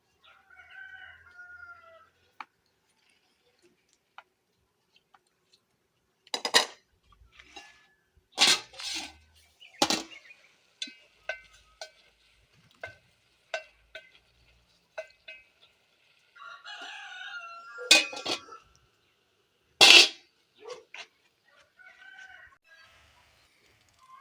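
A rooster crowing, once just after the start and again, longer, about two-thirds of the way through. Between the crows come a series of sharp knocks and clacks, and these are louder than the crowing.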